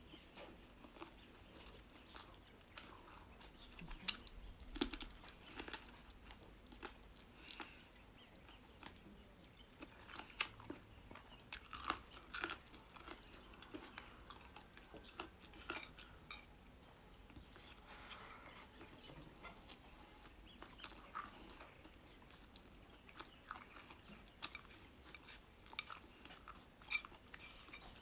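Close-up chewing and crunching of boneless chicken feet: irregular crisp crunches and wet mouth sounds, with a few louder bites.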